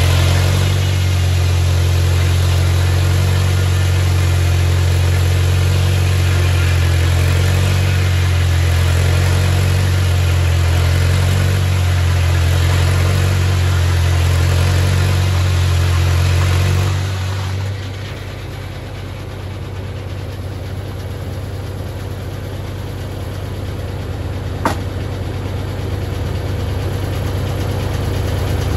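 Straight-piped Farmall Super M tractor's four-cylinder engine driving a circular sawmill, running hard under load with the blade cutting through a log. About 17 seconds in the cut ends, and the engine eases off and runs more lightly; a single sharp knock sounds about 25 seconds in.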